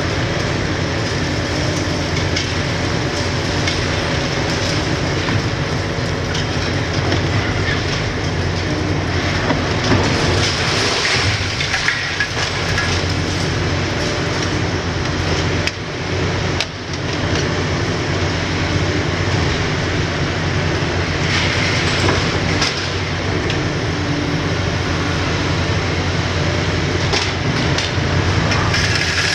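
Hitachi 870 LCR demolition excavator at work: its Isuzu six-cylinder diesel runs steadily under load while the hydraulic crusher on its boom breaks concrete. Irregular knocks and clatter of cracking and falling debris come through it.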